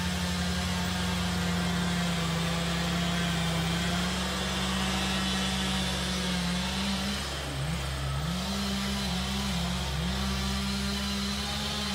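Engine of a heavy logging machine running steadily, its pitch dipping and recovering several times about two-thirds of the way through.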